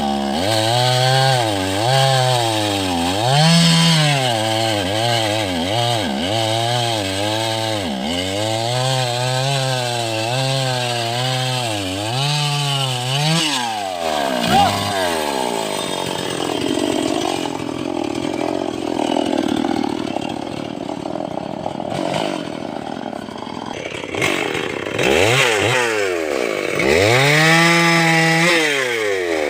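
Chainsaw cutting teak wood. For the first half the engine pitch dips and recovers about once a second as the chain bites under load. It then runs lower and unevenly for about ten seconds before revving up again near the end.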